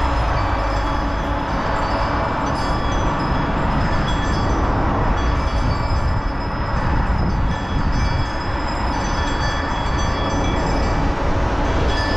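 Steady rush of wind and rolling rumble on a camera riding on a moving bicycle, heaviest in the low end.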